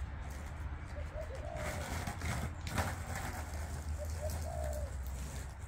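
A dove cooing a few times in short soft phrases, over a steady low rumble of skateboard wheels rolling on concrete, with a single sharp click a little before the three-second mark.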